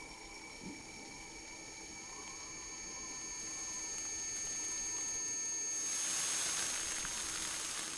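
A steady hum with a few held tones, swelling slowly in level; about six seconds in, a hiss rises and fills the upper range as milk boils up and froths over the rim of a steel pot on a gas burner.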